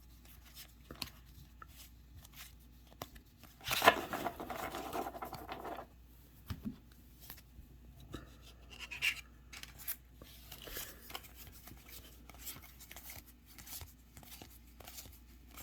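Trading cards and their plastic packaging being handled: scattered light clicks and rustles, with a louder rustling, tearing stretch about four seconds in lasting about two seconds, and a shorter one around eight seconds in.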